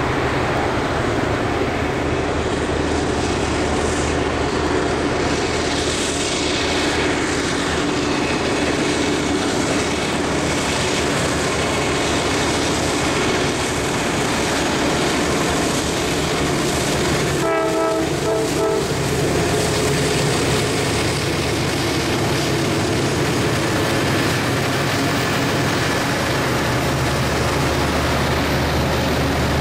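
Norfolk Southern diesel locomotives, including an EMD SD80MAC, pulling a freight train past with a steady engine drone and wheel-on-rail noise. A short horn salute from the locomotive sounds as a couple of quick toots a little past halfway through.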